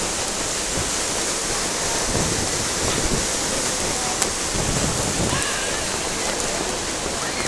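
Steady rushing water noise from the moving sternwheel steamboat Natchez on the river.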